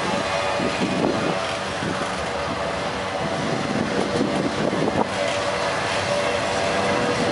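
Freight train cars rolling past at close range: a steady rumble and rattle of steel wheels on the rails, with a few sharp knocks as the cars go by.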